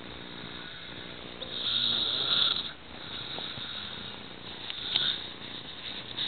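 A man snoring in his sleep: one long snore about a second and a half in, and a fainter one near the end. He snores through an open mouth.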